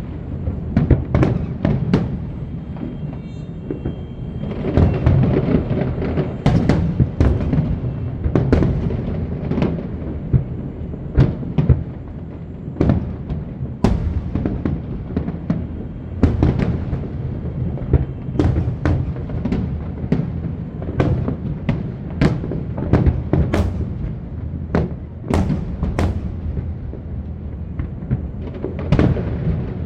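Aerial fireworks shells bursting in quick, irregular succession, dozens of sharp bangs, over music playing underneath.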